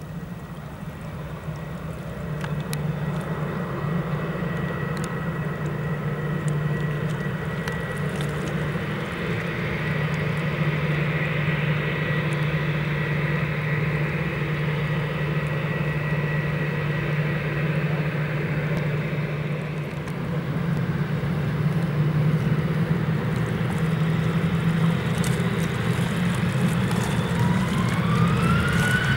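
Airbus A319 jet engines running with a steady whine over a low hum, getting louder; near the end the whine rises in pitch as the engines spool up.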